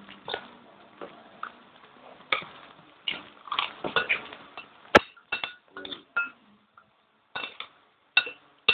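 Irregular clinks and scrapes of an eating utensil on a dinner plate, each clink ringing briefly, with one sharper click about five seconds in.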